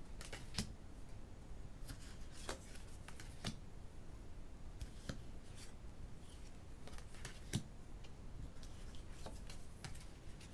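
Tarot cards being turned over one at a time and laid down on piles: faint, irregular soft card clicks and slides, every second or two.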